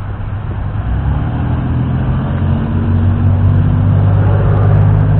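A motor vehicle's engine hum, low and steady in pitch, growing louder from about a second in.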